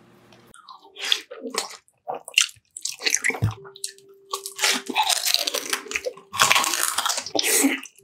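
Close-up mukbang eating sounds: a quick run of crunching bites and chewing of crispy food, the crunches coming irregularly and densest in the second half.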